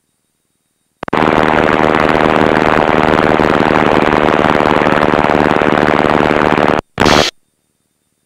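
Steady piston aircraft engine and cabin noise coming through the headset audio feed. It switches on abruptly about a second in and cuts off sharply near seven seconds, with a short blip just after: the intercom or radio squelch opening and closing with no words spoken.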